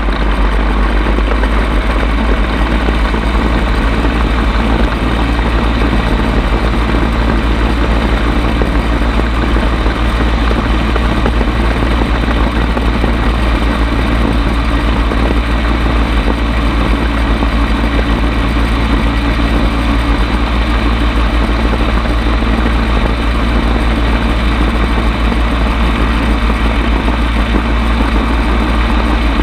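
Bensen B7M gyrocopter's engine running steadily at high power through the takeoff roll and climb-out, with a heavy deep rumble of wind on the microphone.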